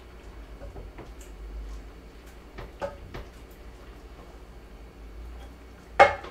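Wooden spoon scraping and knocking against the side of a pot as soft-boiled chickpeas are mashed, with a few light knocks about three seconds in and one loud knock near the end.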